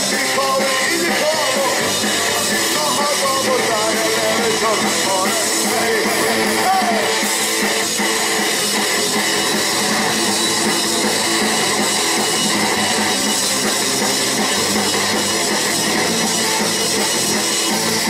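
Live rock band playing loudly: electric guitar, accordion, bass guitar and drum kit together, with bending melodic lines in the first few seconds.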